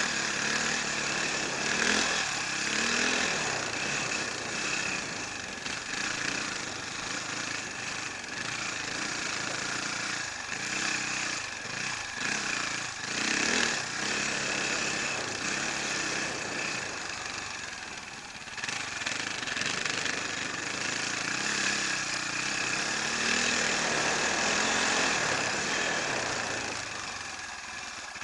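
Enduro motorcycle engine running under way, its revs rising and falling again and again as the rider works the throttle, heard from a camera mounted on the bike.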